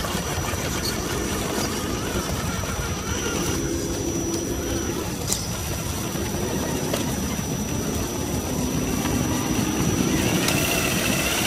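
Traxxas TRX-4 scale RC crawler's electric motor and geared drivetrain whining as it crawls over rocks, the pitch shifting as the throttle is worked. A thin steady high tone sits above it throughout.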